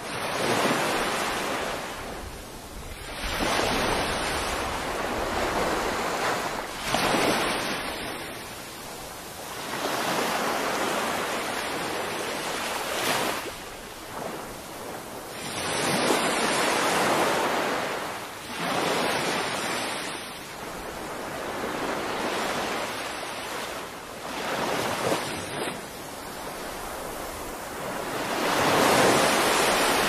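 Small waves breaking and washing up a sandy beach, the surf swelling and ebbing about every three to four seconds.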